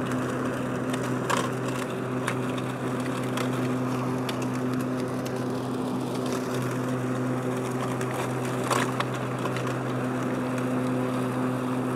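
Powersmart 80-volt cordless self-propelled mower running steadily with its twin blades mulching dry leaves: an even electric-motor and blade hum with scattered crackles and ticks as the leaves are pulverized.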